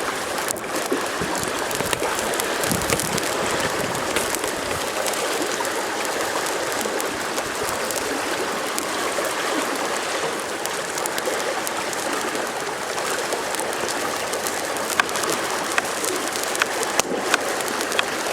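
A river flowing steadily with rain falling, with a few sharp ticks near the end.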